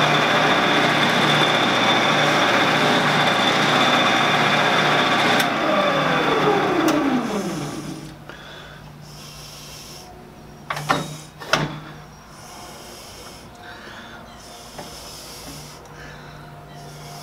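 Shopsmith lathe running with a stainless rod spinning between centres, then switched off with a click about five seconds in and winding down with a falling whine over about two seconds. After that, two sharp knocks near the middle and quiet handling of the rod over a low hum.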